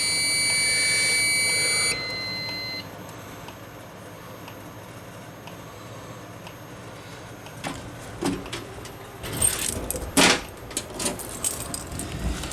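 Electronic buzzers of a home fire alarm system sounding steady high-pitched tones. One cuts off about two seconds in and a second about a second later. Near the end a bunch of keys jangles and clicks.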